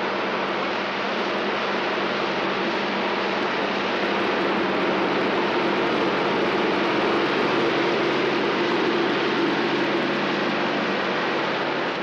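Ford 7710 tractor's diesel engine running steadily under load while ploughing heavy soil. Its drone swells a little in the middle.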